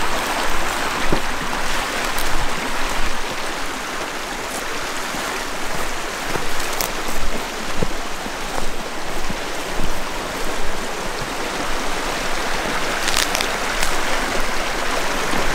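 Shallow creek running steadily over rocks, with a few light snaps and steps from people walking through brush.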